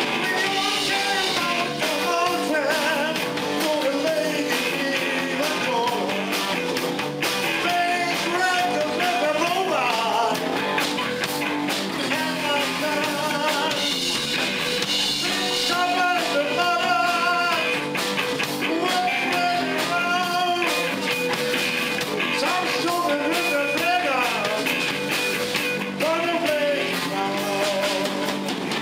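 Live band playing: a horn section of saxophones, trumpets and trombones over a Pearl drum kit, electric guitars and bass.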